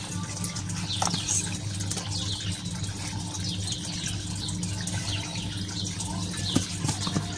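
Small birds chirping over and over, short falling chirps, over a steady low hum, with a couple of faint knocks.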